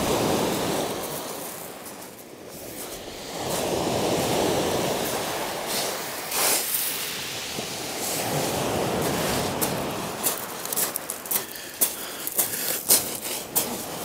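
Waves breaking and washing up a shingle beach, swelling and fading every few seconds, with one sharper hissing break just past the middle. In the last few seconds come many irregular, crunchy clicks of footsteps on the pebbles.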